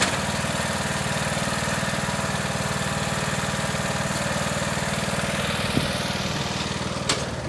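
Riding lawn mower's engine running steadily just after starting, with two short knocks near the end.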